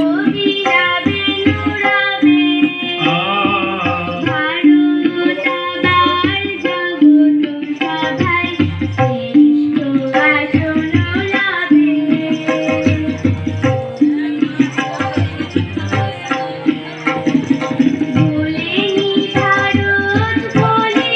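A woman singing a Bengali song with tabla accompaniment, the drum keeping a steady rhythm under sustained accompanying tones.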